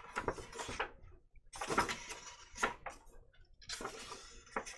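Paper rustling and light taps as a hardcover notebook is handled and its pages are turned, in several short bursts with brief pauses between them.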